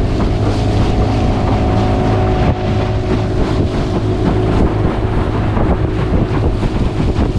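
Small aluminium fishing boat's outboard motor running steadily under way, with water rushing past the hull and wind buffeting the microphone.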